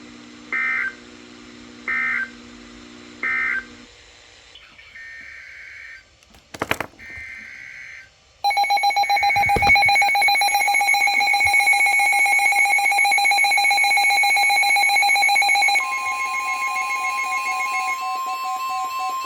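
Emergency Alert System signalling on a NOAA Weather Radio broadcast. Three short warbling data bursts close the previous warning, followed by two longer data bursts and a click. From about eight seconds in comes a loud, steady two-tone attention signal, which switches near sixteen seconds to a single steady alert tone.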